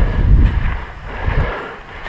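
Low wind buffeting on a body-worn action camera's microphone, dying away after about a second and a half.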